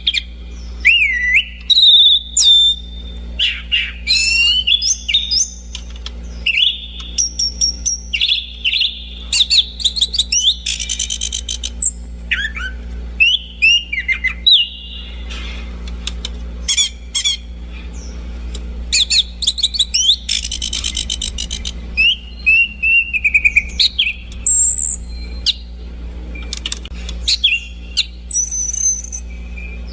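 Anis cendana thrush singing a long, varied song of clear whistled notes, rising and falling glides and quick trills in short phrases with brief pauses, over a steady low hum.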